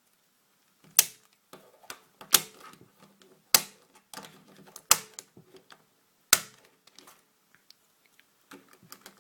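Plastic Dayan Lunhui speedcube being handled as its twisted corners are put back: five sharp plastic clicks about 1.3 seconds apart, with softer clicking and rattling of the pieces between them, and only a few faint ticks near the end.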